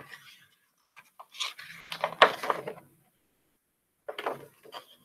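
Pages of a hardcover picture book being turned by hand: paper rustling and rubbing in two short bouts, the first the louder.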